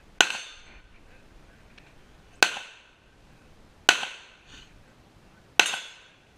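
Handgun shots fired one at a time, four in all, spaced roughly one and a half to two seconds apart, each followed by a short echo.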